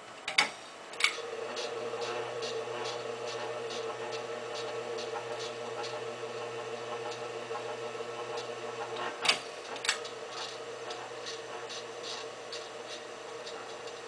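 SMC A52 ceiling fan motor running without its blades: a steady hum with regular ticking about twice a second. It is a bit noisy, which the owner thinks means it probably needs oiling. Two sharp clicks in the first second and two more about nine seconds in.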